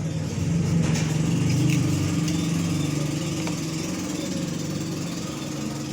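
A motor engine running with a low, steady hum, loudest about one to two seconds in and then slowly fading.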